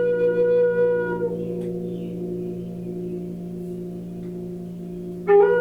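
A flute holds a long note that fades out about a second in, leaving a steady low drone. Near the end the flute comes back in with a short run of notes stepping upward.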